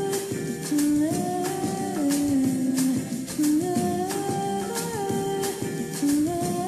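Background music: a slow melody of held notes that glide from one pitch to the next, over light percussion.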